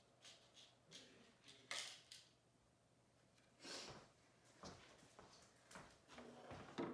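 Faint, scattered rustles and light taps of hands handling chunky yarn and sewing things. The two loudest come about two seconds in and just before four seconds.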